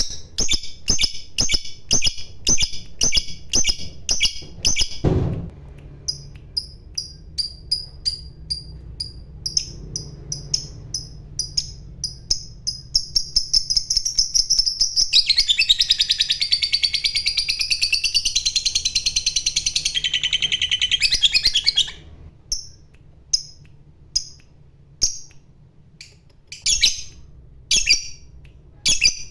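Lovebird calling: a run of sharp, high chirps that quickens into one long, rapid chattering trill (the lovebird's 'ngekek') for about seven seconds in the middle, then breaks back into separate chirps.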